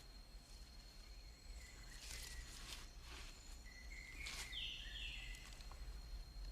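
Quiet outdoor ambience: a steady thin high-pitched tone, a few short chirps, and a couple of soft rustles, with no shots fired.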